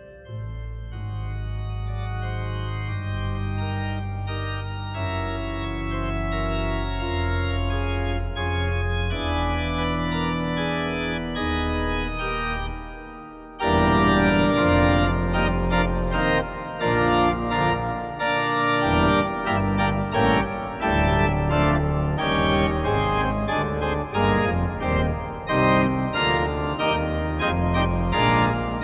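Background music: long held chords for the first half, then a louder, livelier passage of quick short notes starts suddenly about halfway through.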